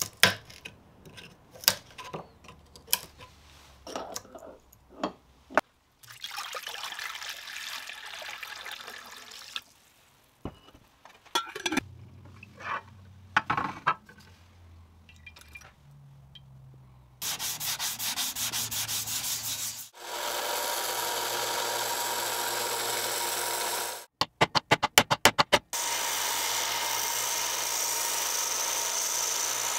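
Sharp metal taps as a pin punch drives the old pins out of the cleaver's wooden handle, then spells of scrubbing and a long, steady run of sanding. About two-thirds of the way through, a quick run of about eight strikes interrupts the sanding.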